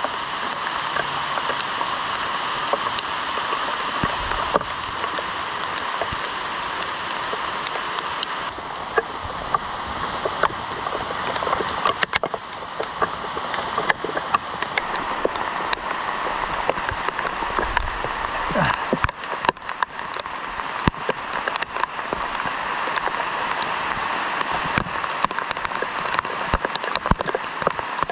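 Steady rain falling, with frequent sharp ticks of drops hitting close by.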